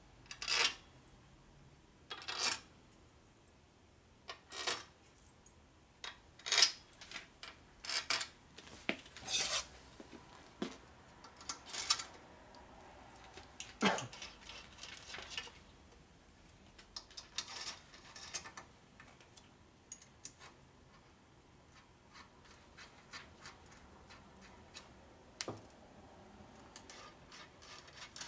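Irregular metallic clinks and rasps of small screws and a screwdriver as cover screws are picked up and run in by hand on an aluminium Harley-Davidson Ironhead Sportster engine case. The clatter is busy through the first two-thirds, then thins to lighter ticking.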